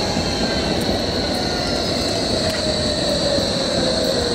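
A Berlin low-floor tram passing close by at low speed: rolling rail noise with a steady high-pitched squeal and a lower whine that slowly falls in pitch.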